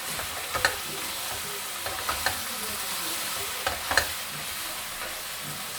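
Chicken pieces sizzling steadily as they sauté in a pot, with a spatula or spoon clicking against the pot a few times as it is stirred.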